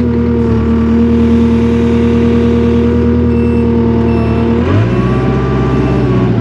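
Takeuchi TL240 compact track loader's diesel engine running loud, heard from the operator's seat, as a steady drone. About three-quarters of the way through, the engine note shifts abruptly to a different pitch as the engine speed changes.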